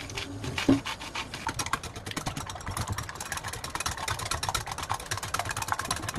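Food sizzling and crackling in a hot pan, a dense, steady spatter of crackles, with one louder knock about a second in.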